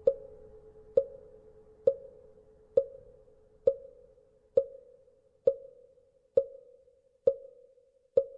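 Wooden fish (mõ) knocked at a steady, even pace, a little more than one stroke a second, each a hollow knock with a short ring. Beneath the first few strokes a temple bell's lingering hum fades away.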